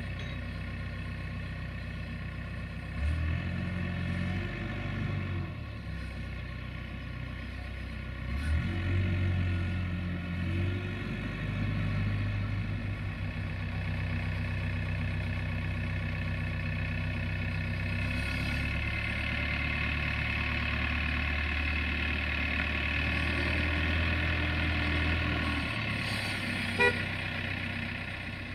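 Diesel engine of a Faresin 6.25 telehandler running and revving up and down as it works. A steady high-pitched whine grows louder in the second half, and there is one sharp click near the end.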